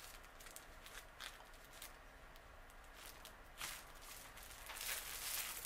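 Faint rustling of a wrapped charm pack of precut fabric squares being handled and turned over in the hands, with a few louder brushes about three and a half seconds in and near the end.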